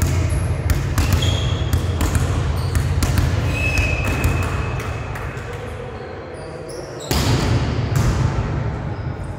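Volleyball being hit and bouncing in a large, echoing gym: scattered sharp thuds over a steady low rumble, with a couple of short high squeaks. The rumble drops for a moment and comes back about seven seconds in.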